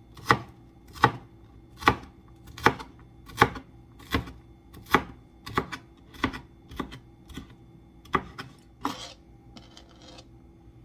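Kitchen knife chopping white onion on a cutting board: steady strokes a little under one a second, growing softer toward the end. A short scrape follows near the end.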